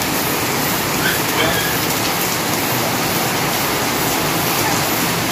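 Steady rain falling on a wet concrete yard, an even hiss.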